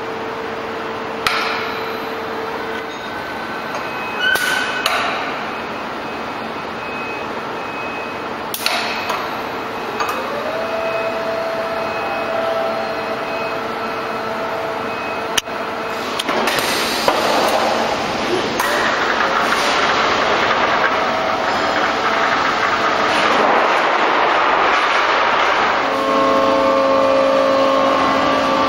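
Automated coil-packing line gantry machinery running: a steady motor hum with a few sharp knocks and clanks. About ten seconds in, a motor whine rises and then holds. The last third is louder, with a dense rushing noise.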